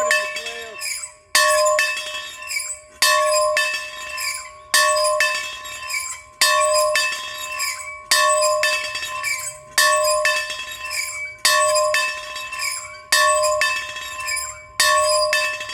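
A bell rung in a steady rhythm, about one stroke every second and a half to two seconds, nine strokes in all. Each stroke rings out on the same pitch with a few lighter clinks right after it, and fades before the next.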